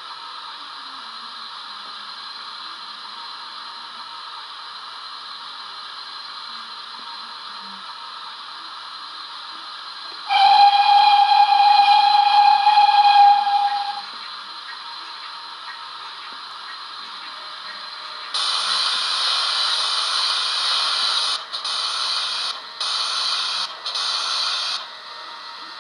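Sound decoder of an Oxford Rail Dean Goods model steam locomotive, playing through its upgraded speaker: a soft steady hiss of the engine standing, then one long steam whistle blast about ten seconds in. From about eighteen seconds a loud steam hiss begins and breaks into a few shorter bursts as the model starts to move.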